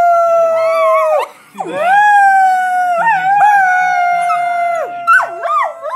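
A dog and people howling together in long drawn-out howls: one about a second long, then a longer one lasting about three seconds, then wavering up-and-down wails near the end.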